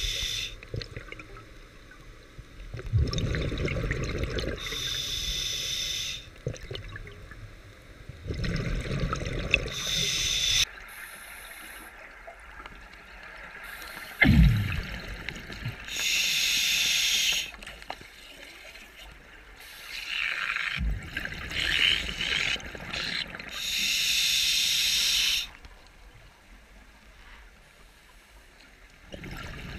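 Scuba diver breathing through an open-circuit regulator: a hissing inhalation and a rumbling burst of exhaled bubbles, repeating about every six to eight seconds for four breaths. A sharp knock comes about halfway through.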